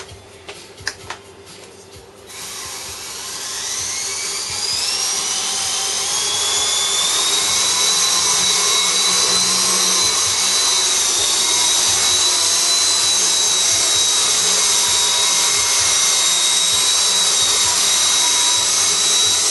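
Walkera CB180D electric RC helicopter starting up: a few clicks, then about two seconds in the motor and rotor whine begins, rising in pitch for a few seconds as it spools up, and settles into a steady high whine as it flies.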